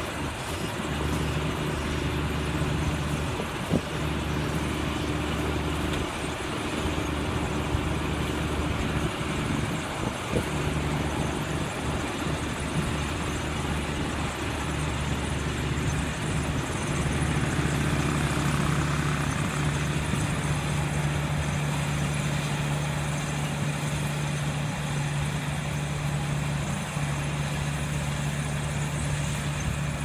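Small AJ217 rice combine harvester running steadily as it cuts and threshes standing rice, its engine giving an even mechanical hum. The hum grows a little louder about halfway through, and there are a couple of faint knocks.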